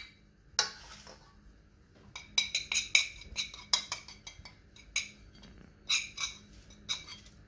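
A spoon clinking and tapping against a ceramic plate as dry seasoning is knocked off it onto raw chicken drumsticks: one clink early, a quick run of light clinks about two seconds in, then a few single taps.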